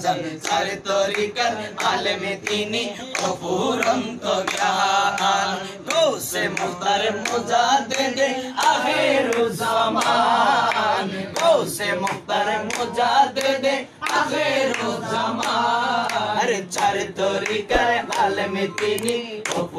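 Men's voices singing a Bengali manqabat (Sufi devotional song), a wavering, melismatic lead line with others joining in, over a steady rhythmic beat of sharp strikes.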